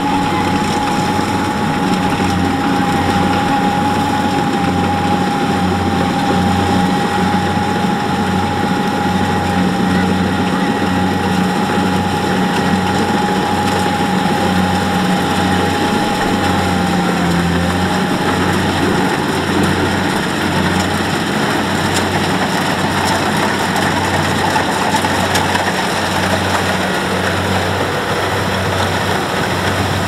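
Kubota rice combine harvester's diesel engine running steadily under working load, with a regular low throb a little more than once a second. A steady high whine from the machinery fades out a little past halfway.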